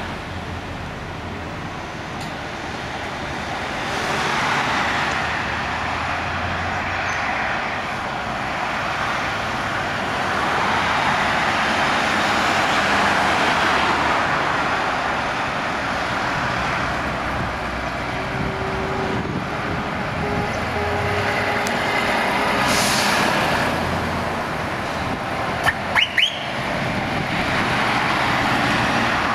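Convoy of heavy lorries and vans driving past on a dual carriageway: a steady rush of diesel engine and tyre noise that swells as each vehicle passes below and eases between them. About four seconds before the end come two or three short, sharp sounds.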